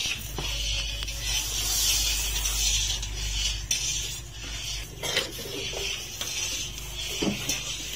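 A large iron karahi of milk, split with tartaric acid for sohan halwa, boiling hard over a wood fire with a steady hiss of steam and bubbling. A metal ladle clanks against the pan a few times.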